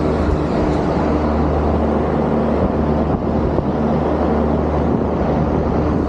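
Trane 25-ton rooftop package unit running close up: the condenser fans blow a steady rush of air over a low, steady hum from the unit's compressors.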